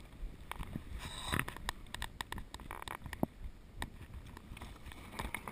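Mountain bike ridden fast down a dry, rocky dirt trail: tyres rumbling and crunching over loose dirt and stones, with frequent sharp clicks and rattles from the bike.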